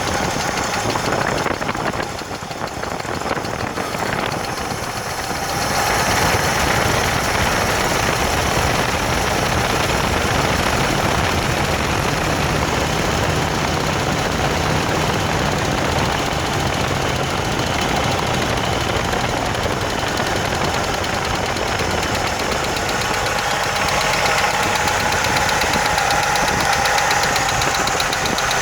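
1980 Jeep CJ7 engine running with a ticking noise. It drops in level a couple of seconds in and picks back up about six seconds in.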